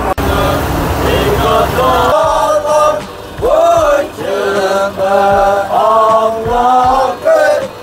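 Vehicle rumble for about two seconds, then a group of men chanting in unison, phrases rising and falling.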